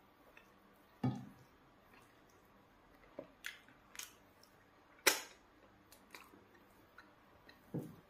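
Mukbang eating sounds of eba and spinach soup eaten by hand: scattered wet mouth smacks and clicks as food goes into the mouth and is chewed, with a soft thump about a second in and near the end. The loudest is a single sharp smack at about five seconds.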